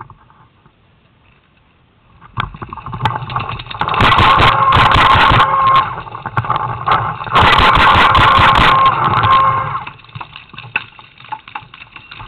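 Paintball marker firing in rapid strings, starting about two seconds in, with dense sharp pops over a steady whine; two long loud strings, then scattered single shots near the end.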